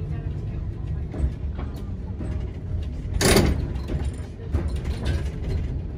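Vintage double-deck tram running, heard from inside: a steady low rumble with scattered clicks and knocks as the driver works the controller handle. A short, loud burst of noise comes about three seconds in.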